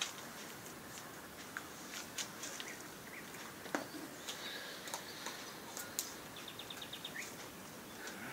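Quiet outdoor ambience with scattered sharp clicks and a few short bird chirps, with a quick run of ticks toward the end.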